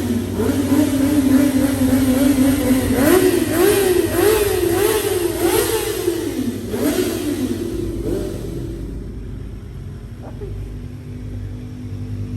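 Small sport motorcycle engine being revved: a held rev, then a run of quick throttle blips that rise and fall several times, before it drops back and settles to a quieter steady running note near the end.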